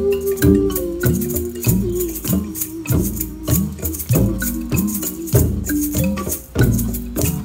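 Percussion music: an even beat of low, pitch-bending drum strokes about twice a second, with a shaker rattling over it and a held note that ends about two seconds in.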